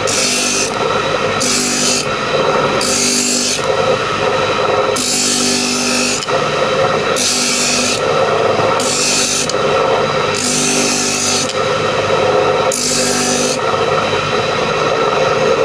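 Power tool shaping a wooden bowl: a steady motor hum with a rasping, hissy cut into the wood repeating about every one and a half to two seconds.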